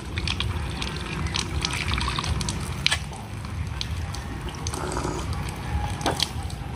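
Water running from an outdoor tap and splashing over hands being washed for ablution, with scattered small drips and clicks.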